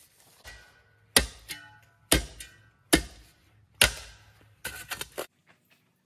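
Music with heavy percussive beats, about one hard hit a second over a steady low bass and a few held tones, ending in a quick run of hits and cutting off abruptly near the end.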